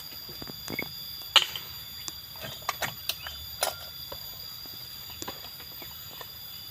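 A few sharp knocks and clicks spaced irregularly, the loudest about a second and a half in and again past halfway, over faint steady high-pitched tones. No chainsaw is running.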